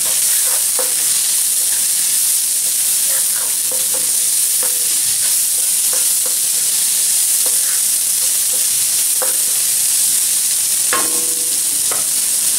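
Chopped spinach and shredded chicken sizzling in a nonstick pan while a wooden spatula stirs them, with scattered light scrapes and knocks against the pan. The strongest scrapes come about eleven seconds in.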